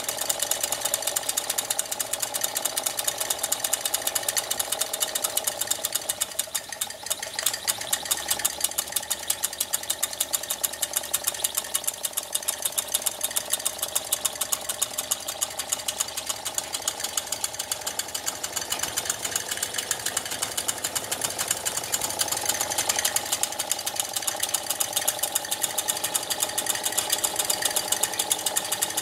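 Wilson Bros. toy steam engine running and driving a tin toy workshop through belts and pulleys: a fast, even mechanical clatter that dips briefly about seven seconds in.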